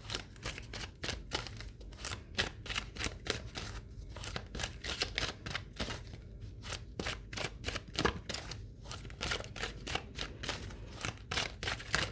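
A deck of oracle cards being shuffled by hand: a steady run of quick, soft card slaps and flicks, about four or five a second.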